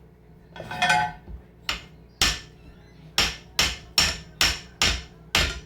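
Hammer tapping a snowblower's keyed shaft through its case, a run of about eight sharp metallic strikes that come faster toward the end. The shaft is binding, which the owner puts down to a burr on its end.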